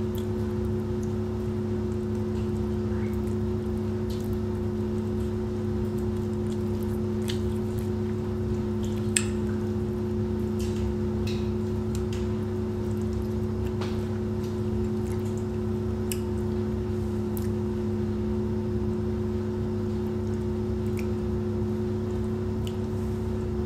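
A steady appliance hum with several fixed tones runs throughout, over faint clicks and smacks of someone eating rice by hand; one sharper click comes about nine seconds in.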